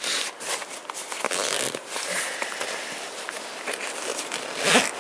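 Zippers on an Osprey Atmos backpack being pulled shut, with nylon pack fabric rustling and a few sharp clicks as the pulls and buckles are handled.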